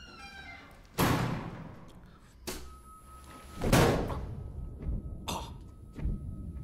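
Film sound effects of a violent struggle: a heavy clunk about a second in, then the loudest, heaviest thud a little past the middle as a man's head is slammed down onto a table, followed by smaller knocks as he is hauled up and held.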